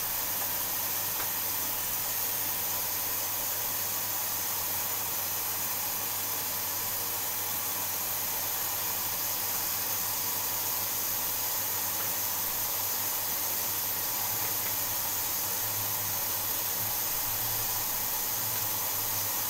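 Steady, even hiss with a faint low hum underneath and no distinct events.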